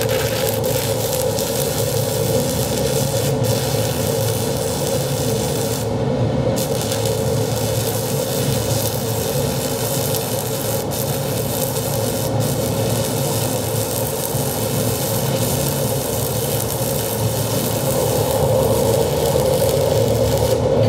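Stick-welding (SMAW) arc from a 6011 electrode burning on steel plate: a steady crackling sizzle with a spatter of pops, the hiss briefly dropping about six seconds in.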